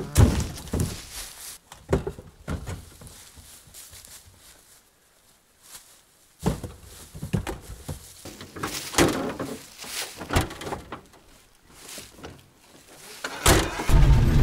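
A series of scattered knocks and thuds with quiet gaps between them, then a loud steady low rumble starts near the end.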